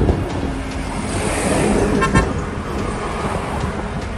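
A short vehicle horn toot about two seconds in, over steady road and traffic noise.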